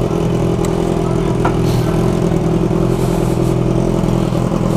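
Motorcycle engine running at steady revs, with a few faint clicks.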